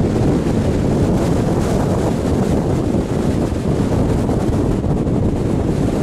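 Wind buffeting the microphone of a camera mounted on the hood of a moving car: a steady low rumble with vehicle noise underneath.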